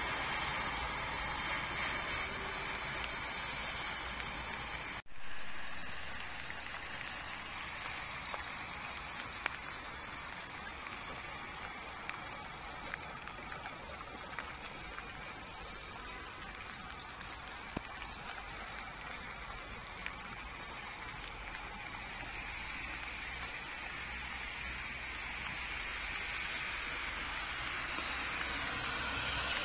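Steady hiss of rain and running water on a wet street, with scattered faint ticks. The sound cuts out for an instant about five seconds in.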